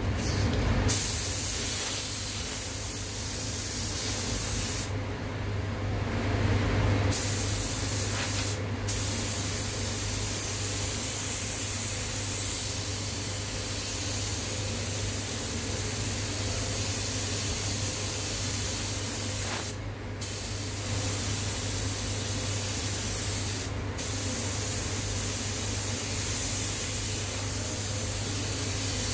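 Anest Iwata LPH-80 gravity-feed spray gun hissing steadily as it sprays clear coat over base coat. The spray stops for about two seconds around five seconds in, and breaks off briefly a few more times as the trigger is released between passes.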